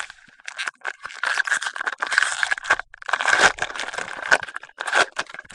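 Foil wrapper of a trading card pack crinkling and crackling as it is torn open by hand, with a short break about halfway through.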